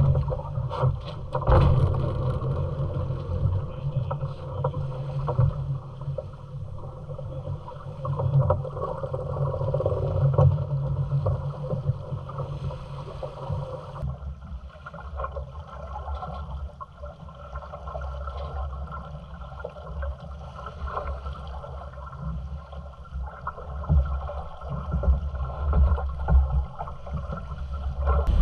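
Onboard sound of a Pogo 8.50 sailboat under way: a steady rush of water along the hull mixed with wind noise, with a few sharp knocks in the first couple of seconds. About halfway through, the sound shifts to a deeper, lower rumble.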